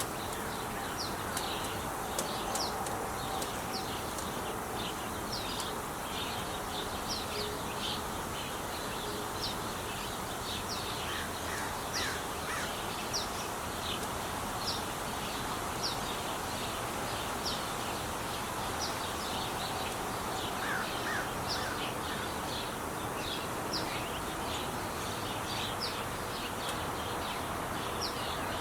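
Steady noise of traffic on the 5 freeway, with small birds chirping over it again and again in short, high notes, and a few lower calls twice.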